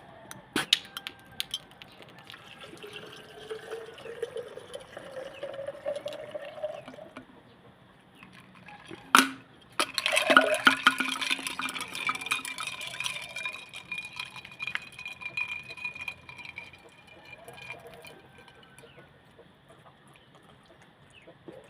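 Pepsi poured into a glass, the pitch rising as it fills. About nine seconds in there is a sharp knock, then loud fizzing and crackling of carbonation that slowly dies away.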